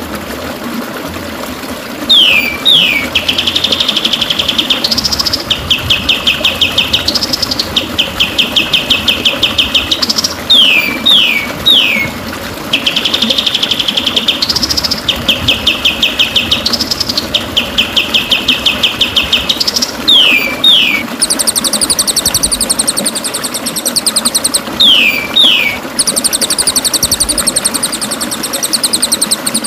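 Bird song played as a training recording (masteran) for white-rumped shamas. Pairs and triples of quick falling whistles alternate with long, very rapid trills that rise at the end, repeating in a regular pattern, with a higher, faster trill layered in from about two-thirds of the way through.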